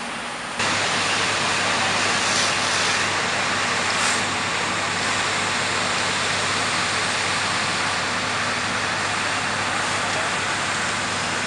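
Fire engine running steadily at the scene, a low engine hum under a loud, even rushing noise; the sound gets suddenly louder about half a second in, then holds steady.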